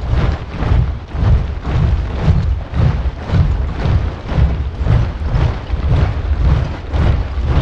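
A large body of soldiers marching in step: many boots landing together about twice a second, each step a deep thud with a scuffing spread above it.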